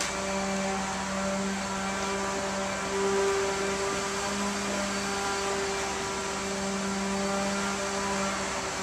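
Steady mechanical hum of an air-conditioning unit: a constant drone with a whirring hiss over it.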